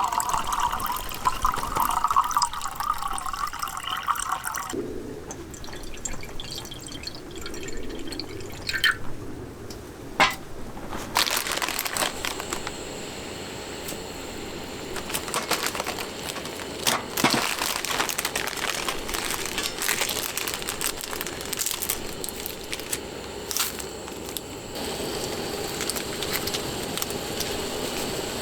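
Liquid being poured into a container for the first few seconds, its pitch rising slightly as it fills, then stopping. After that, scattered clicks and knocks of objects being handled.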